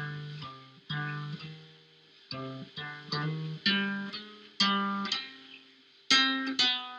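Guitar music: chords plucked one after another, each struck and left to ring out and fade, about half a dozen in all.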